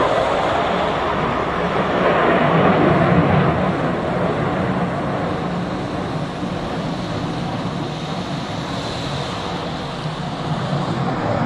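Military jet aircraft flying high overhead, a continuous jet engine rumble and rush. It eases slowly through the pass, then swells again near the end.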